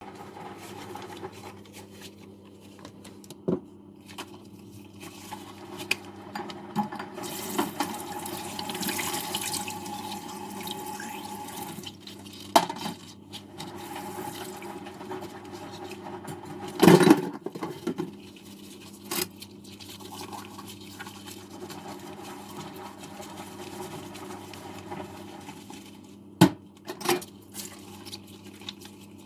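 Water running into a kitchen sink while dishes are washed, with a few sharp clatters of dishes knocking, the loudest about halfway through. The water rushes louder for a few seconds near the start.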